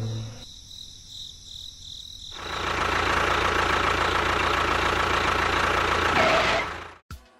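Toy tractor's motor running steadily, starting about two and a half seconds in and cutting off suddenly near the end.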